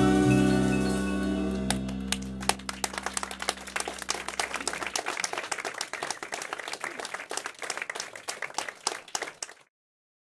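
A live jazz band's final held chord of horns and keyboard rings out and fades over the first few seconds as the audience breaks into applause. The clapping carries on and cuts off suddenly near the end.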